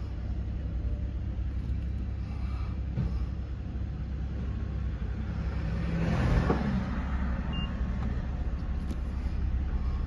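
Steady low rumble of a car and street traffic heard from inside the car's cabin. A vehicle passes close alongside about six seconds in, swelling louder and then fading.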